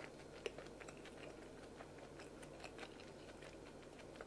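Faint scattered clicks and small handling noises, with one sharper click about half a second in, over a low steady hum.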